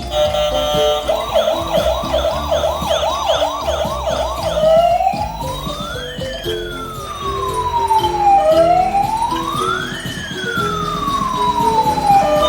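Electronic siren of a toy ambulance: a fast yelp of rapid rising sweeps, about three a second, that about four seconds in changes to a slow wail rising and falling twice.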